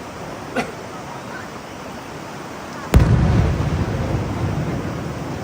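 An aerial firework shell bursts with a sharp boom about three seconds in, its low rumble echoing and slowly fading afterwards. A smaller pop comes earlier.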